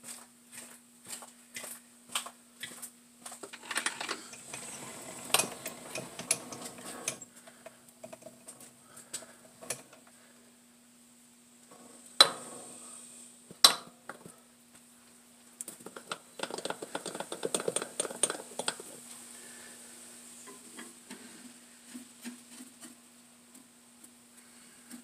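Metal tools and parts being handled at a lathe: light clinks and rattles, with two sharp metallic knocks about halfway through. Under them runs a steady low hum with a faint high whine, and over the first few seconds there is a regular tick about twice a second.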